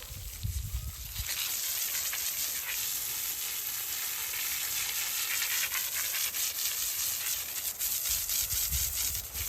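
Garden hose spraying water onto a horse's coat: a steady hiss that starts about a second in, with a few low knocks at the start and near the end.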